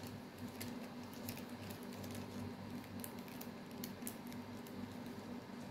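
Faint, scattered clicks and light rustling of small diamond-painting supplies being handled on a table, over a steady low hum.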